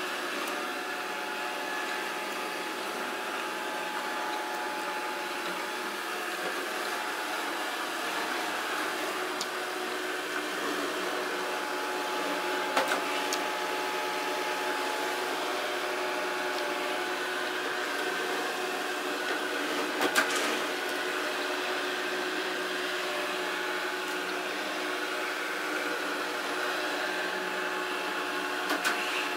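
Samsung SR8751 robot vacuum cleaner running: a steady motor and brush whir with a constant pitch, broken by a few brief knocks.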